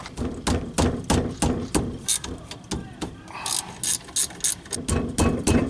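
Socket ratchet clicking in quick repeated strokes as it turns out the 13 mm brake caliper bracket bolts.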